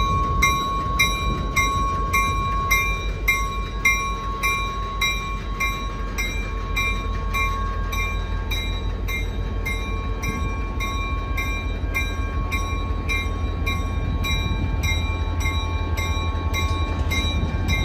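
Diesel-electric locomotive rumbling deeply as it rolls slowly, its bell ringing steadily at about two strokes a second.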